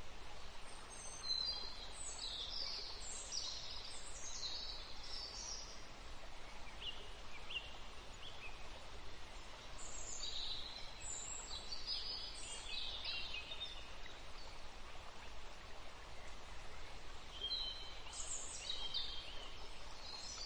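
Faint birds calling over a steady hiss of outdoor ambience: quick high chirps and twitters come in three spells, about a second in, around ten seconds in, and near the end.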